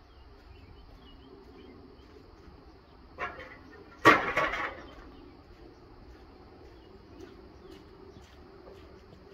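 Pieces of scrap steel plate dropped onto gravel: a short clank about three seconds in, then a loud metal crash about a second later that clatters and rings briefly, over a faint steady hum.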